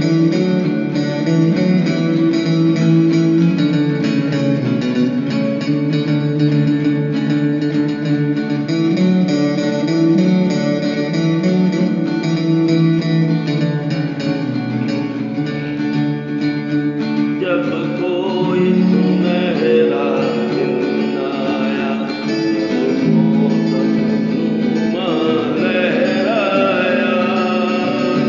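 Acoustic guitar playing a slow unplugged song accompaniment, with a singer's voice coming in over the guitar about two-thirds of the way through and again near the end.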